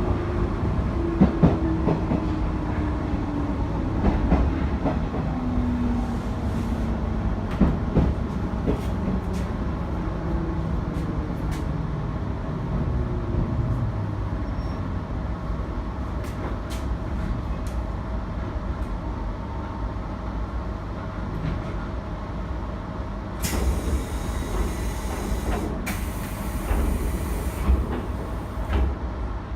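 JR 719 series electric train running, its motor tone falling steadily in pitch through the first half as the train slows, over a low rumble with scattered clicks from the rails. Near the end a hissing noise comes in for several seconds.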